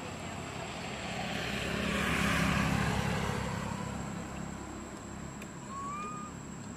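A passing vehicle's engine, its rumble swelling to a peak a couple of seconds in and then fading away.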